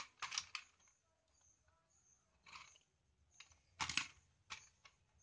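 Faint scattered clicks and rustles of hands handling and twisting together the ends of electrical wires on a switchboard. The loudest cluster comes about four seconds in.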